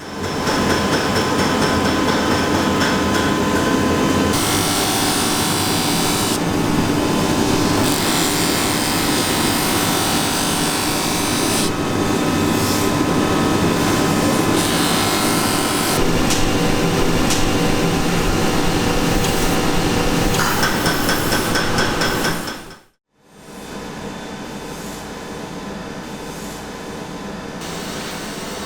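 Workshop power tools running steadily, the grinding or sanding noise of knife work, changing character abruptly every few seconds across a series of cuts. It drops out briefly near the end, then comes back quieter.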